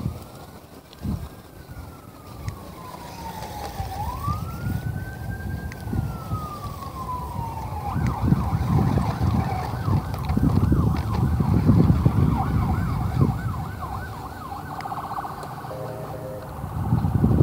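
A siren wailing in slow rising and falling sweeps, switching to a fast yelp about eight seconds in, over heavy wind noise on the microphone.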